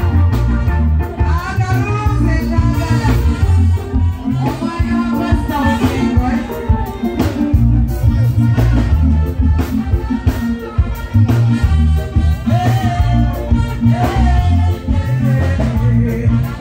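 Live band music over a PA: heavy bass guitar and drum kit keeping a steady beat, with keyboards and a female voice singing a melody over it.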